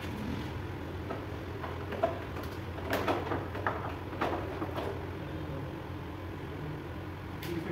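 A series of sharp clicks and knocks as the plastic fairing and fittings of a KTM RC 390 are worked on by hand during stripping, mostly in the middle of the stretch, over a steady low hum.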